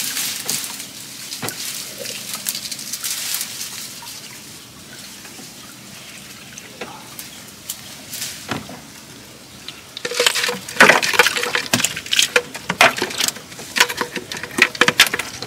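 A netted wire fish trap knocking and rattling as it is untied and handled in a small boat. From about ten seconds in, the clicks and rattles come thick and loud as the trap is lifted out.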